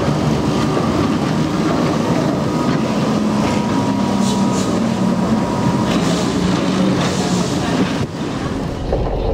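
A 1911 Hurst Nelson electric tram rolling past on street rails, its wheels and running gear running with a steady hum.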